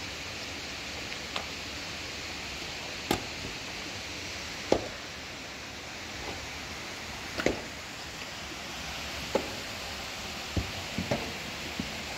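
Scattered dull knocks and thuds of a pick striking packed earth and of mud bricks and clay being set down, one every second or two with a quick cluster near the end, over the steady rush of flowing water.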